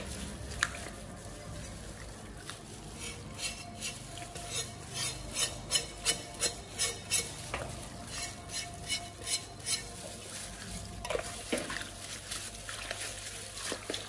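Cured pork being scrubbed with a scouring sponge in a stainless-steel basin of hot water: a run of rhythmic scrubbing strokes, about two or three a second, with the water swishing.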